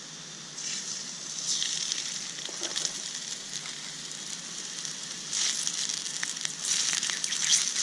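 Catfish fillet sizzling in hot olive oil in a pan over campfire coals: a crackling hiss that starts as the fish goes into the oil and grows louder over the last couple of seconds.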